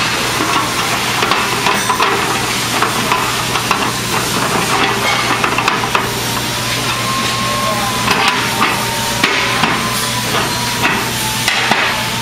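Irregular metal clinks and knocks as aluminium platform deck sections and steel connecting pins are handled and fitted together, over a steady low hum.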